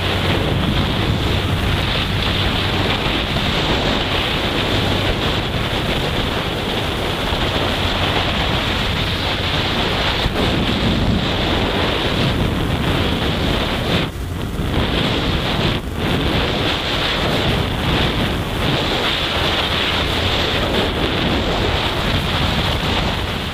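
Heavy wind buffeting the microphone of a motorcycle riding at road speed. The hum of the Honda CG 160 Fan's single-cylinder engine shows through for the first few seconds, and the wind noise dips briefly twice a little past the middle.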